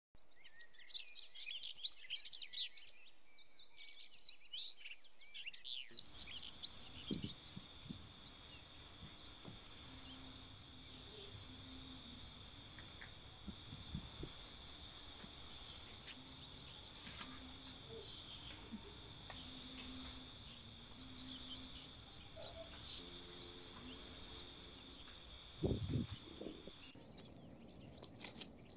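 Faint birds chirping for the first few seconds, then a steady outdoor hum of insects with a high pulsing trill. A single low thump comes near the end.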